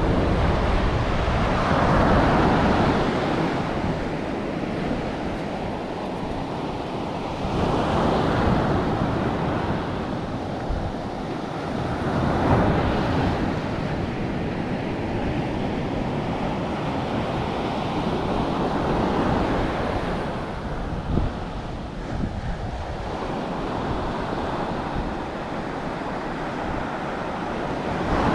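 Ocean surf breaking and washing up a sandy beach, the noise swelling in broad surges every few seconds, with a steady low rumble of wind buffeting the microphone.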